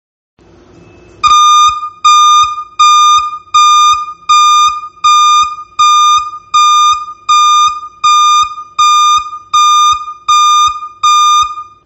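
DNI3502 armored forklift reverse alarm sounding its intermittent warning: a loud, high, single-pitch beep repeated about every three-quarters of a second, fourteen times, starting about a second in.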